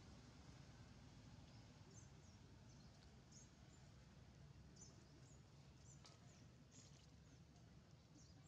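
Near silence: faint outdoor ambience with a low rumble and scattered faint, short high-pitched chirps.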